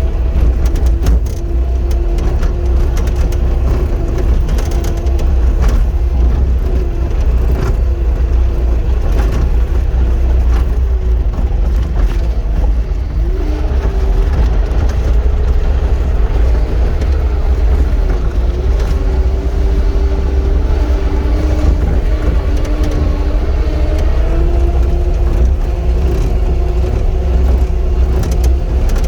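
Caterpillar 259 compact track loader's diesel engine running steadily under load, its pitch shifting up and down as the machine works, with scattered clanks.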